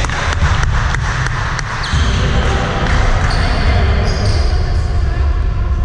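Basketball game sounds in a sports hall: a run of sharp knocks from the ball and players' shoes on the court in the first two seconds, over a steady low rumble of hall noise, with voices calling.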